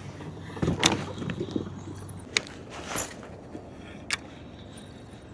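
A few separate sharp clicks and knocks, four in all, with a short rustling scrape about a second in, from fishing gear being handled in a kayak.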